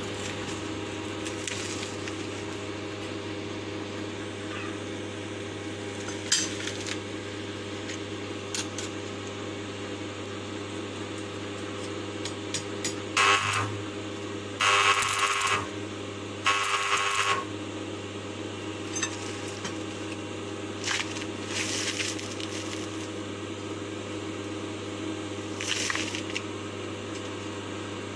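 A steady mechanical hum runs throughout, broken by a few short bursts of metallic clatter and scraping, loudest about halfway through.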